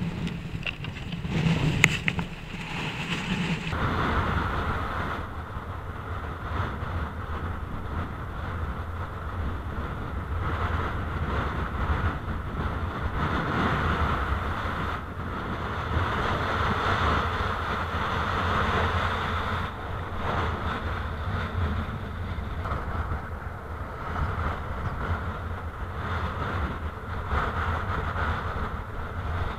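Strong wind buffeting an action camera's microphone, a steady rushing noise, with surf washing over the shallows. About two seconds in there is a sharp knock, from handling the kite bar.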